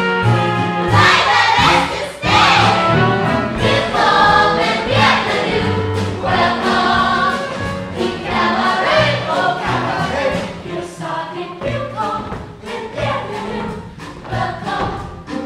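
A musical theatre ensemble singing together as a chorus, with band accompaniment.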